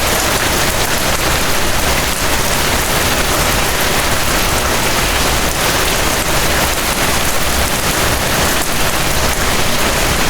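Steady, heavy rain falling on a surface: a dense, even hiss of countless drops that holds unchanged throughout.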